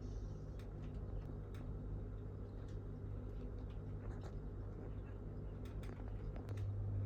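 Low steady hum with faint, scattered clicks and ticks; the hum gets louder near the end.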